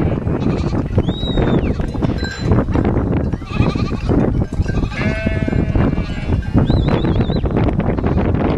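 Goats bleating several times, each call wavering and about a second long, with goat bells clanking between them.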